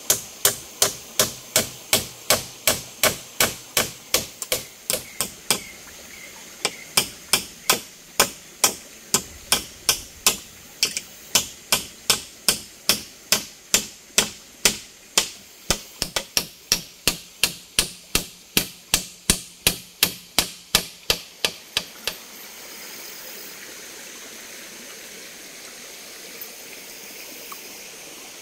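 A hammer striking in a fast, steady rhythm of about two to three sharp blows a second, with a brief break about six seconds in. The blows stop about 22 seconds in, leaving the steady rush of a mountain stream.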